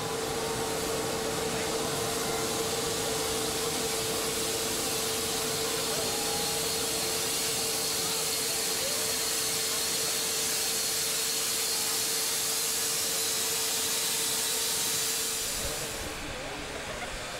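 Class 52 'Kriegslok' steam locomotive 52.4984 standing and blowing off steam: a loud, steady hiss with one faint held note under it, which dies away about 15 seconds in.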